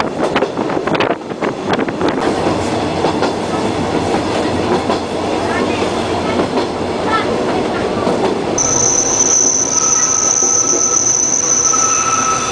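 Rack-railway train running along the track with a steady rumble of wheels and running gear, wind buffeting the microphone in the first couple of seconds. About two-thirds of the way in, a high, steady wheel squeal sets in as the train takes a curve.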